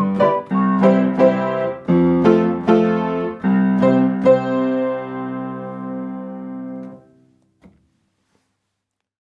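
Upright piano chords pressed with a Pianistick, a wooden stick whose pegs push down a whole chord at once. A quick run of chords leads into a final chord that rings for about three seconds and is cut off suddenly, followed by silence.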